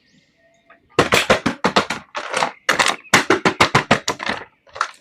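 About a second of near silence, then a rapid run of sharp clicks and crackles, several a second.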